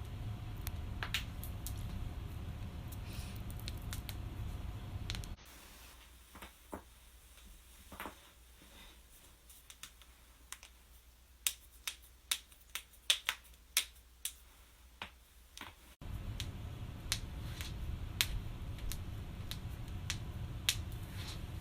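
Joints cracking and popping: a string of short, sharp pops, with a quick run of a dozen or so past the middle.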